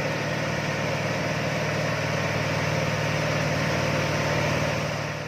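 Diesel engine of a heavy logging truck laden with logs, running steadily with a low, even drone, fading out near the end.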